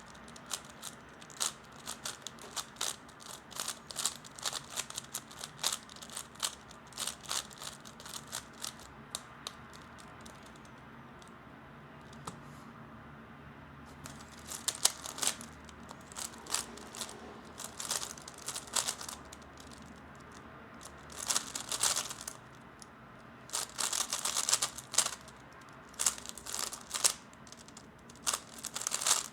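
Plastic 3x3 Rubik's speedcube being turned fast by hand: rapid clicking and clacking of the layers in quick bursts, with a pause of about four seconds near the middle.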